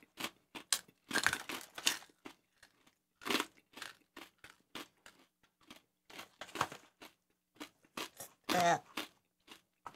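Crunching and chewing of hard roasted corn nuts (spicy Corn Nugz), a run of irregular sharp crunches. A short hum of a voice comes near the end.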